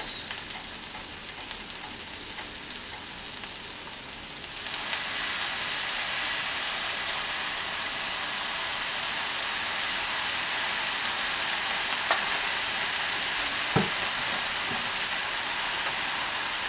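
Fried rice sizzling in a hot nonstick frying pan. The sizzle gets louder about five seconds in, as soy sauce is poured onto the hot rice, and then stays steady. There are a couple of light knocks near the end.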